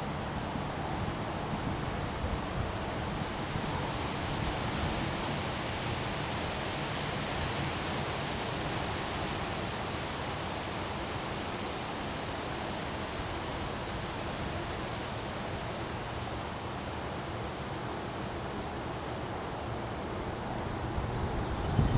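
Steady rushing noise of a rainy windstorm, wind and rain through trees, with no separate gusts or drops standing out. Near the end a few low rumbles of wind buffeting the microphone come in.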